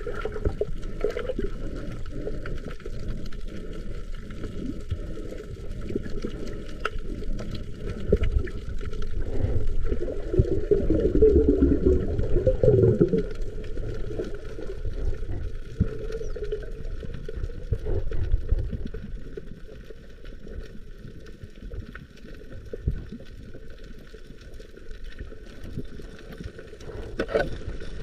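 Muffled sea water sloshing and gurgling, as heard in and under the water while spearfishing. A louder stretch of bubbling comes about ten to thirteen seconds in, and it grows quieter for a while near the end.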